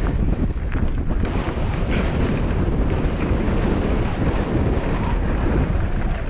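Wind buffeting an action camera's microphone during a mountain bike descent: a steady, loud rushing rumble with a few light clicks from the bike.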